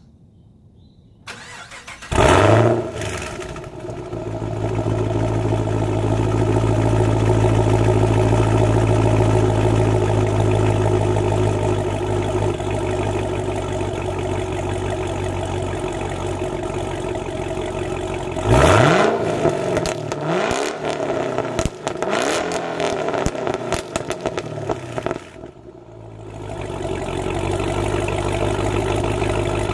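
2015 Chevrolet SS's 6.2-litre LS3 V8 through a modified exhaust, cranked and started about two seconds in with a brief flare of revs, then idling steadily. Near two-thirds of the way it is revved once, then given several quick blips of the throttle, before dropping back to idle.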